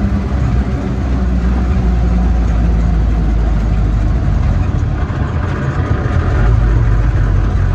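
1952 Land Rover Series 1 80-inch, its 2.0-litre four-cylinder petrol engine running under way, heard from inside the cab together with road noise. The sound grows a little louder about five seconds in.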